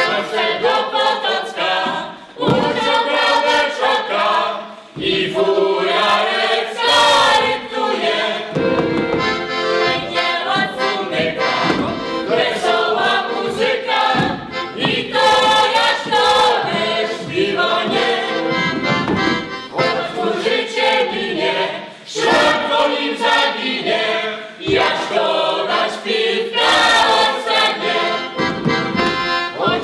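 Polish folk dance music: a choir singing a lively tune over accordion accompaniment.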